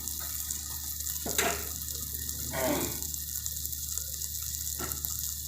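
Masala of onion, tomato and ground spices frying in oil in a pressure cooker, a steady sizzle, with a couple of sharp clinks and a short scrape.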